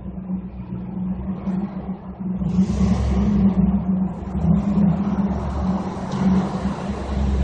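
A 1994 Cadillac DeVille's 4.9-litre V8 running through its stock exhaust, its muffler cracked on top, as the car drives up through a concrete parking garage. The exhaust note gets louder from about two and a half seconds in as the car comes closer.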